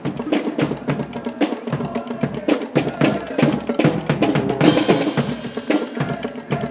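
Marching band drumline playing a quick, steady beat on snare and bass drums, with a cymbal crash about four and a half seconds in.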